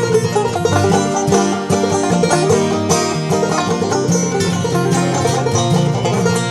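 Clawhammer banjo playing an instrumental break between sung verses, a steady run of plucked notes.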